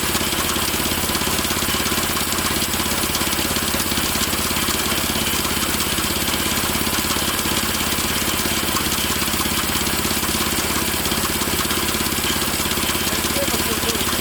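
Predator small gas engine on a portable bandsaw sawmill running steadily.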